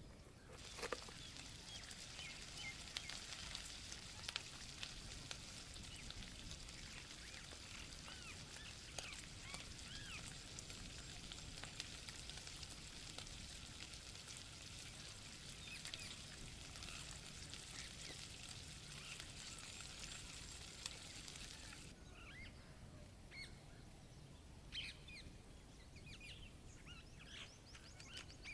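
Faint ambience track of small bird-like chirps over a steady hiss. The hiss cuts off abruptly about three-quarters of the way through, leaving only scattered chirps.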